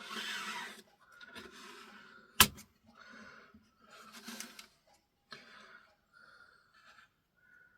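Soft handling noises from close-up bench work, a run of short rustles and scrapes, with one sharp click about two and a half seconds in.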